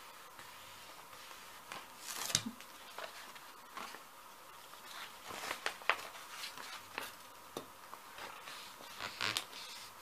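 Paper being handled and laid onto a gel printing plate, then pressed and rubbed down by hand: scattered rustles and light taps, with a soft thump about two seconds in.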